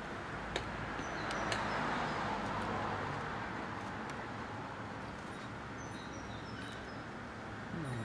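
Outdoor terrace background noise that swells for a few seconds and fades, like traffic passing, with a few faint clicks, short bird chirps near the end, and a brief falling 'mmm' from a man chewing just before the end.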